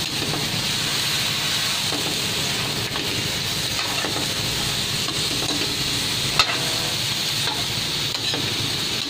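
Chicken pieces sizzling in an aluminium wok as a metal ladle stirs them, sautéed with garlic to take away the gamey smell, with one sharp knock about six seconds in.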